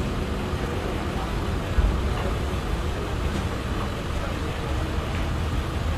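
Steady city street traffic noise with a deep rumble, and a brief low thump just before two seconds in.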